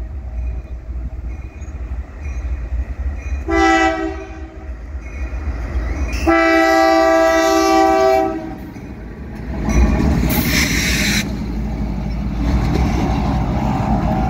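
The Nathan K5H horn on a GE AC44CW locomotive sounds a short blast and then a long one, the end of a grade-crossing signal. Two GE diesel locomotives running light then pass close by with a steady low engine rumble and wheel noise, and a loud burst of hiss about ten seconds in.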